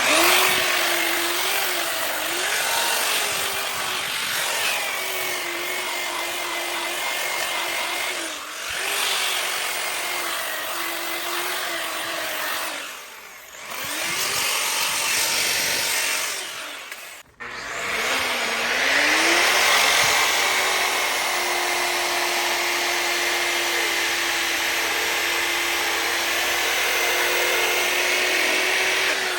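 Bauer variable-speed grinder-polisher running a sanding disc against a cast iron skillet: a steady motor whine under the rasp of abrasive on bare iron. About halfway through the motor winds down and back up, and a few seconds later it stops briefly and spins up again.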